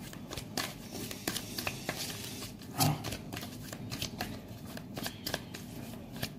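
A deck of tarot cards being shuffled by hand: a run of irregular soft card clicks and flicks.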